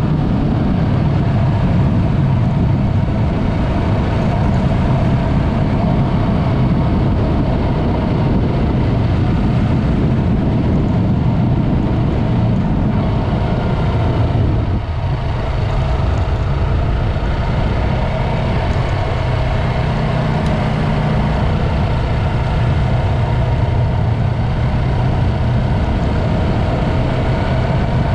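Yamaha MT-03's parallel-twin engine running steadily on the move through a Mivv aftermarket exhaust, with a brief dip in level and a change in engine note about halfway through.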